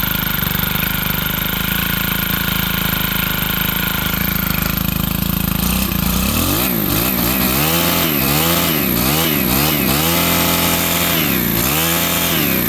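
Stihl HT 131 pole saw's small 4-MIX engine on its first test run after a bottom-up rebuild. It runs steadily for about five seconds, then the throttle is blipped, revving up and down about six times in quick succession. The low-speed carburettor mixture still needs adjusting, as the owner says.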